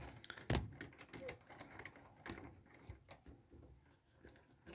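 Faint, scattered clicks and taps of a circuit board and its loose pins being handled, with one sharper knock about half a second in.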